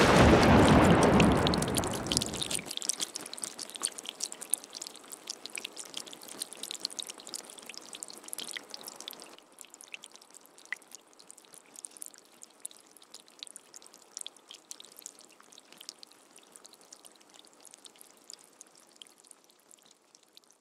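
Intro sound effect: a loud burst right at the start that dies away over about two seconds, followed by a faint, sparkly crackle of fine clicks that gets quieter and fades out near the end.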